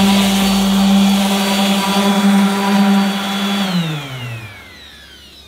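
Electric orbital sander running steadily against a boat's hull while sanding the bottom ahead of new bottom paint, with a steady hum. A little over three and a half seconds in it is switched off, and the hum falls in pitch as the motor spins down.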